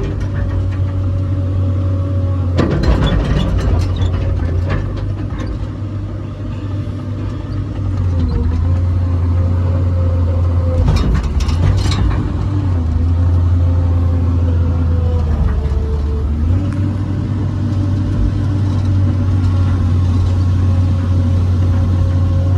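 Komatsu PC200LC-8 excavator's diesel engine running throttled up, heard from inside the cab, its note dipping and recovering as it takes load while the upper structure swings on the turntable. A few short rattles come about three seconds in and again around eleven seconds in.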